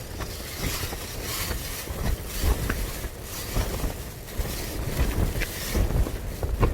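Wind buffeting the microphone in uneven gusts, a low rumbling rush.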